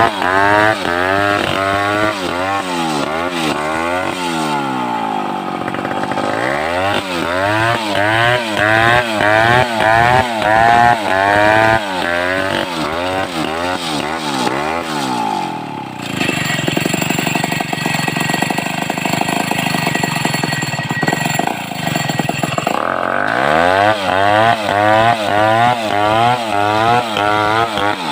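Home-built Stihl 070-type two-stroke chainsaw cutting timber. Its engine speed rises and falls about twice a second for much of the time, and it runs at a steady high speed for several seconds in the middle.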